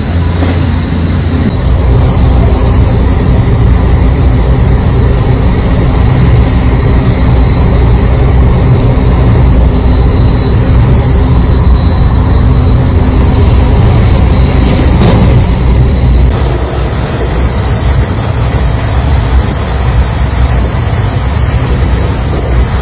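JR West Special Rapid Service electric train running at high speed, heard from inside the car: a loud traction-motor hum over the steady rumble of wheels on rail. The sound changes abruptly twice as one run gives way to another.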